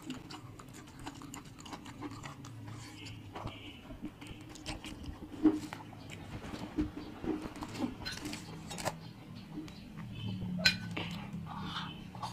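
Eating sounds: a metal spoon clinking and scraping on the dishes while food is chewed, with scattered small clicks and two sharper clinks, one about midway and one near the end.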